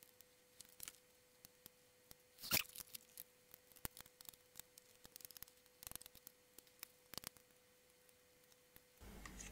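Faint scattered clicks and taps of a screwdriver and fingers working on the housing of a solar LED security light as it is taken apart, with one louder handling noise about two and a half seconds in.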